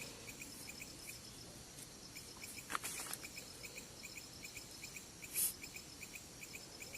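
Crickets chirping steadily in a quick, even rhythm at night, with two brief rustling noises close by, one about three seconds in and a sharper, louder one about five and a half seconds in.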